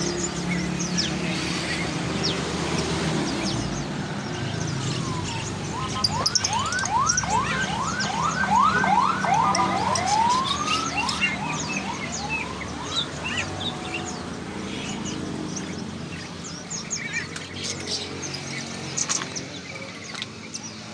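Many caged songbirds chirping together, with one bird giving a run of quick rising whistled notes about a third of the way in, over a steady low hum.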